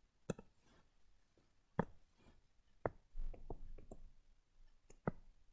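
Several faint, sharp clicks and taps of a stylus or pen on a drawing tablet during handwriting, with a patch of lighter scratchy taps about three seconds in.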